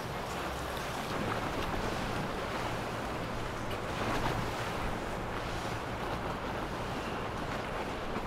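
Mercury Racing 350R outboard engines running at low cruising speed as the boat passes, a steady low hum under the splash and rush of the hull's wake, with wind on the microphone.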